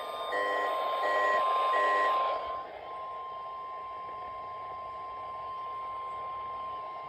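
NOAA Weather Radio 1050 Hz warning alarm tone on a weather-radio receiver: one steady, unbroken high beep. Over the first two seconds, fainter beeping pulses about every 0.7 s and static are mixed in; after that the tone runs alone over light hiss.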